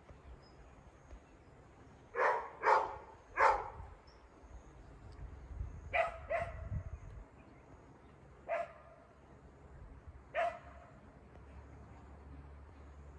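A dog barking: a quick run of three barks about two seconds in, then a few single barks spaced a couple of seconds apart.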